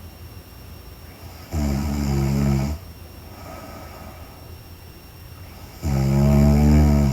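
A woman snoring in her sleep. There are two loud, pitched snores, each a little over a second long and about four seconds apart, with quieter breathing between them.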